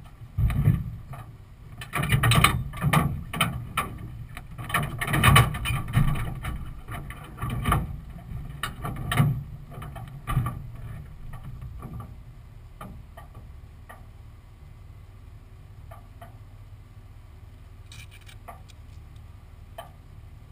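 Irregular knocks, clunks and rattles carried through a parked dragster's body as the driver moves about in the cockpit and climbs out, loudest in the first half. After that a steady low rumble with a few faint ticks, and no engine running.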